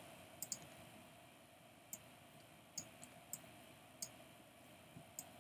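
Near silence, broken by a few faint, scattered clicks of a computer mouse.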